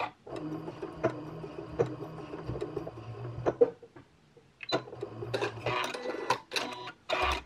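Janome Continental M7 computerized sewing machine stitching through fabric, with a steady motor hum and clicking needle strokes, in two runs with a short pause a little past the middle. It ends with a brief, louder mechanical burst as the machine trims its own thread.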